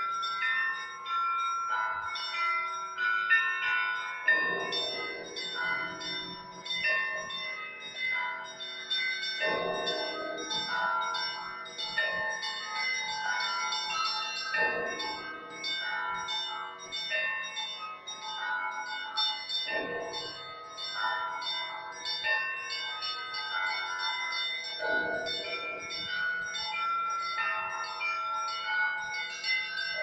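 Russian Orthodox bell ringing calling the faithful to the all-night vigil: small bells ringing in a quick, busy pattern over the middle bells, with a deep bell struck about every five seconds.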